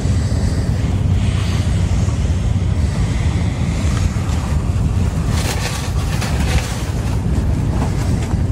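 Steady low rumble of wind on the microphone, with brief rustling about five and a half seconds in.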